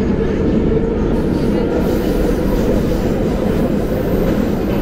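Metro train running through a tunnel, heard from inside the carriage: a loud, steady rumble of wheels on rail with a hum that fades in the first second.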